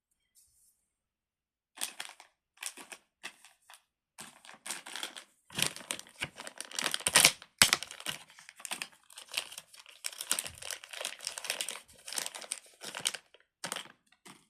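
Packaging crinkling and rustling as it is handled, in dense irregular crackles starting about two seconds in.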